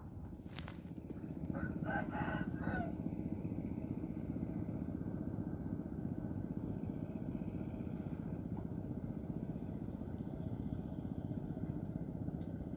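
A rooster crowing about one and a half to three seconds in, over a steady low motor drone that runs throughout. A single sharp click sounds near the start.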